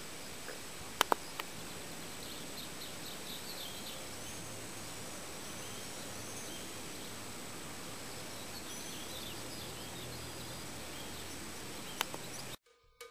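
Outdoor ambience over flooded fields: a steady background hiss with small birds chirping, and a thin steady high-pitched whine. A few sharp clicks about a second in and again near the end, then the sound cuts to silence just before the end.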